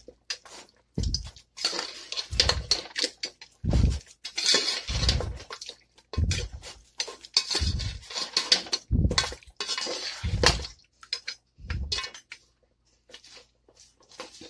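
A spoon scraping and knocking around a cooking pot as mutton is stirred and fried with yogurt, in repeated strokes about every second and a half, fading to light clicks near the end.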